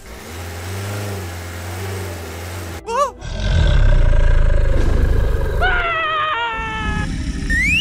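Dubbed toy-play sound effects: a low engine rumble for the first few seconds, then a loud monster roar starting about three seconds in, with a high screeching cry over it toward the end. A short rising squeal comes just before the end.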